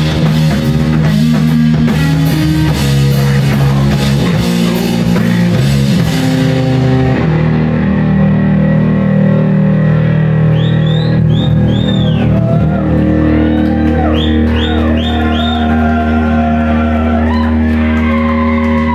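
Live heavy rock band, with distorted electric guitar, bass and drum kit, playing loud. About seven seconds in the drums and cymbals drop out, and the guitars ring on with held low notes and high sliding notes over them.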